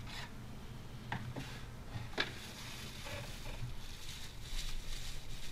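Packaging being handled as the bubble-wrapped camera body is lifted out of its cardboard box: a few light clicks and taps of cardboard and plastic, then soft rustling of the plastic wrap near the end.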